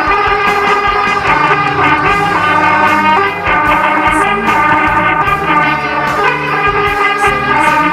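Instrumental band music led by brass, starting abruptly and loudly with a rhythmic melody.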